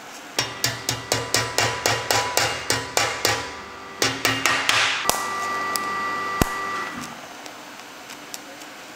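Small hammer striking a thin sheet-steel pedal car wheel-arch panel in a quick run of blows, about five or six a second, then a shorter run. The last blow leaves the steel ringing for nearly two seconds.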